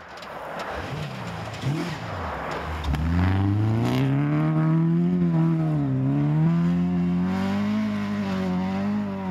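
Honda rally car's engine revving hard as it comes through a snowy corner sideways. It is fainter at first, then loud from about three seconds in, its pitch rising, dipping briefly about six seconds in, then climbing again.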